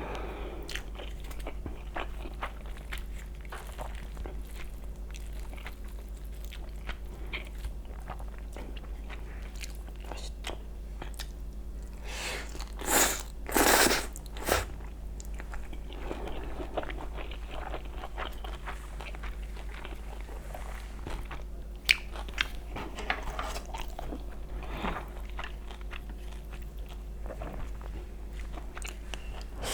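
Close-miked eating: steady chewing with small wet mouth clicks, and two louder bursts of biting or slurping about halfway through.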